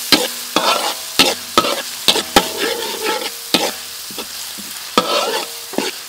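A steel spatula scraping and clinking against a steel wok in irregular knocks while stir-frying. Minced garlic and red chillies sizzle in the oil underneath.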